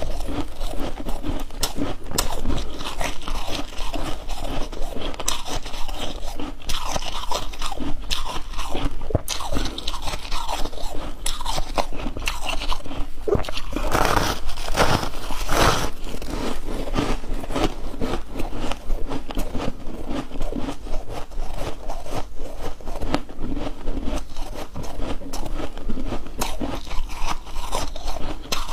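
Close-up crunching of a person biting and chewing chunks of 'humidifier chunks' ice: a dense, irregular run of crisp cracks and crunches, louder for a couple of seconds around the middle.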